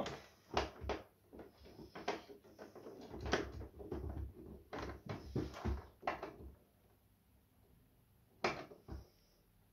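Screwdriver and hands working at a swing-arm TV wall bracket's mounting plate on the back of a TV: irregular clicks, knocks and scrapes of screws being driven and plastic and metal being handled, busy for about six seconds, then two short clicks near the end.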